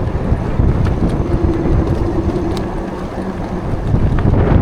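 Wind buffeting the microphone of a rider on a moving e-bike, a dense low rumble, with a faint steady hum for about two seconds near the middle.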